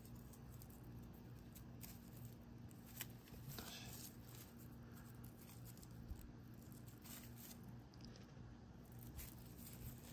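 Faint rustling and light clicks of raffia yarn being handled and drawn through crochet stitches with a tapestry needle, with one slightly louder rustle about four seconds in, over a low steady hum.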